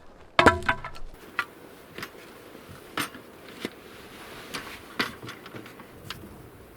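Carpentry work on wooden door trim: one loud knock with a brief ringing tone about half a second in, followed by scattered light knocks and clicks.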